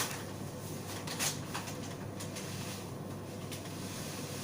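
A few light clicks and rustles of hands handling parts while refilling a coffee machine, over a steady low hum.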